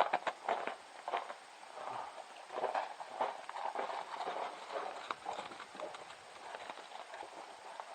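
Irregular light knocks and clatter, loudest in the first second and thinning out after about five seconds.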